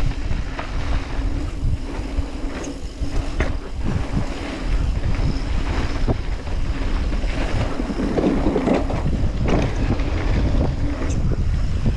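Wind buffeting the microphone of a GoPro riding a Commencal Clash mountain bike downhill, with a steady low rumble of tyres on dirt and short knocks from bumps and landings, the loudest about eight seconds in.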